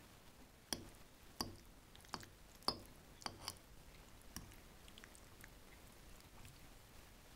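Kitchen utensils clicking and tapping against dishware or a pan: about seven sharp, briefly ringing taps over the first four and a half seconds, then a few faint ticks.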